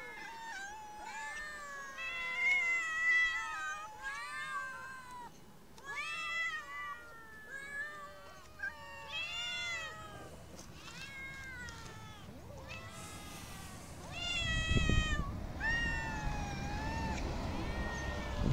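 Several stray cats meowing over and over, their high calls overlapping and rising and falling in pitch. About three-quarters of the way through, a low rumbling noise joins them.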